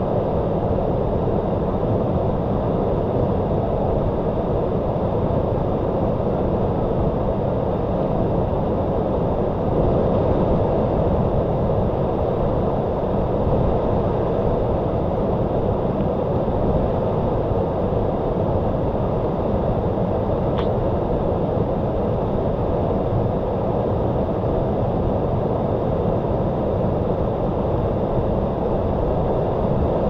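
Waterfall: a steady, low rush of falling water that keeps an even level throughout.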